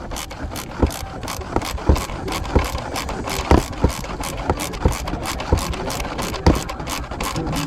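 Hand ratchet wrench clicking in quick repeated strokes, with a heavier knock about once a second, as the bolt holding the front shock on is loosened.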